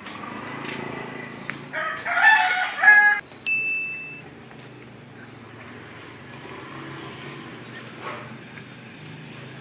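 A rooster crows once, a single drawn-out call about two seconds in, over a faint steady low hum.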